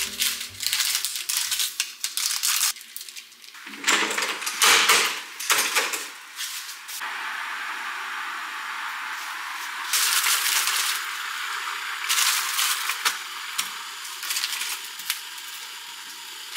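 Cooking clatter and rustling: a sauce packet and utensils knocking against a stainless steel frying pan, loudest about a third of the way in. After that comes a steady sizzle from the pan on the cooktop, with more clatter over it.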